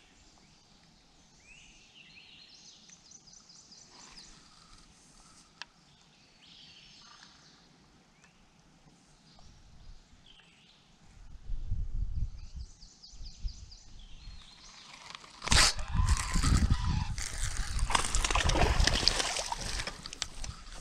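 Birds chirping and trilling faintly. About eleven seconds in a low rumble starts, and from about fifteen seconds a loud rushing, crackling noise covers everything.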